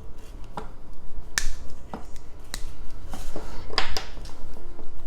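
A chocolate bar being snapped into pieces by hand: roughly half a dozen sharp, irregularly spaced snaps.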